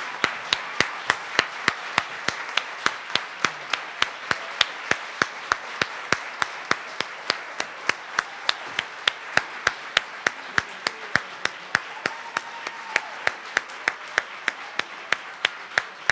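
Audience applause, with one person's hands clapping close to the microphone in a steady beat of about three claps a second, loud over the clapping of the room.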